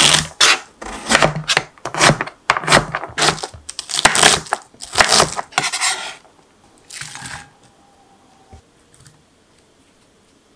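A chef's knife chopping celery stalks on a cutting board: a quick run of chops, two or three a second, that stops about six seconds in. A brief rustle follows as chopped cabbage is pushed together on the board.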